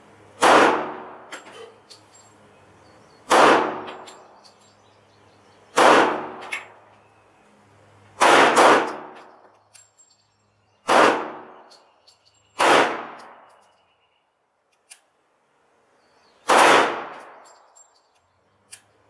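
Pistol fired in slow, single aimed shots, about eight of them two to three seconds apart, each ringing out in a short echo. There is a longer pause before the last shot.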